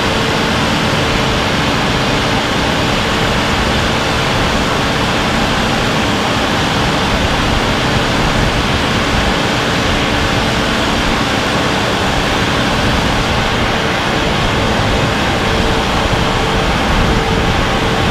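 Steady loud machinery noise in a mine tunnel under construction: a constant rushing roar with a steady hum through it. Some lower hum fades out about two-thirds of the way through.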